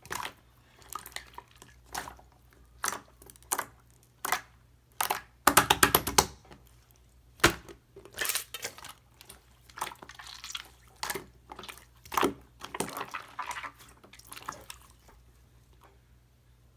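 Slime being squeezed and pressed by hand: a string of sticky wet clicks and pops, with a dense rapid run about five and a half seconds in, dying away near the end.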